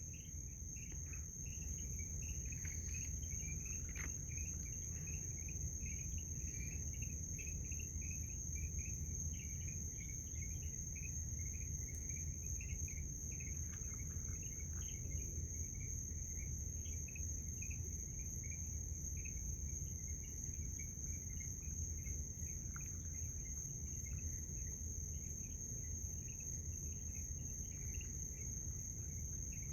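Crickets and other insects chirping in a steady night chorus, with a continuous high-pitched ringing and scattered faint chirps over a low background hum.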